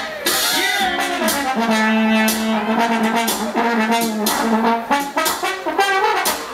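Funk music with a horn section playing over a drum beat; a long low horn note holds for about three seconds in the middle.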